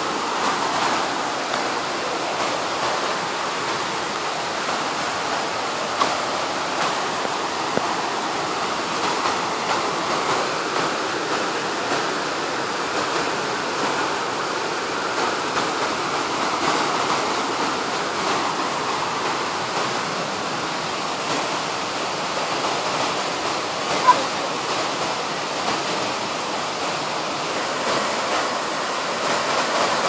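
Steady rushing of a waterfall, even and unbroken, with one short sharp click about three quarters of the way through.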